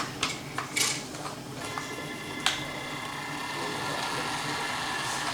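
Small electric motor of a remote-control toy Hummer whining steadily as it drives, growing slightly louder in the second half, with a couple of sharp clicks.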